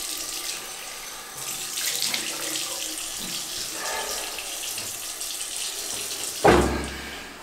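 Water running from a bathroom sink tap into the basin, with splashing as hands bring water up to a face. About six and a half seconds in comes a sudden loud, deep thump that dies away over about a second.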